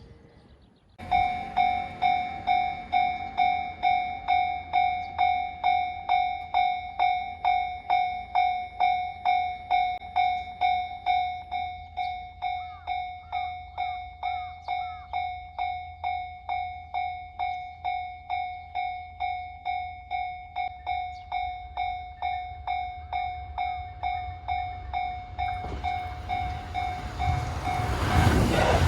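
Japanese level-crossing warning bell starting about a second in, ringing a steady 'kan-kan' tone about twice a second. Near the end the noise of a train rises over it as the train reaches the crossing.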